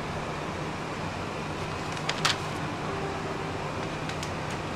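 Steady running rumble of a diesel railcar, heard inside the carriage, with a few sharp clacks: a loud pair about two seconds in and more near the end.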